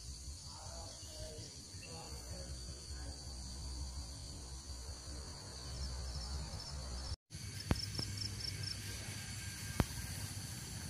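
Crickets chirping in a steady high-pitched chorus over a low rumble. The sound cuts out for an instant about two-thirds through, then a quick run of about six chirps and two sharp clicks follow.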